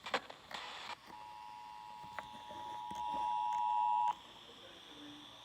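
Emergency Alert System attention signal, the steady two-tone alert (853 and 960 Hz), heard over FM radio. It sounds for about three seconds, growing louder, then cuts off suddenly, with a couple of short bursts of static just before it starts.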